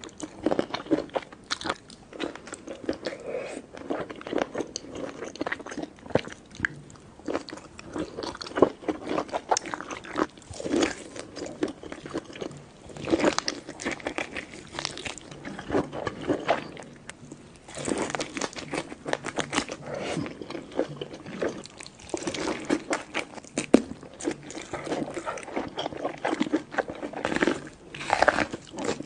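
Close-miked chewing of crunchy food: repeated bites and dense, irregular crunching and crackling, with short lulls between mouthfuls.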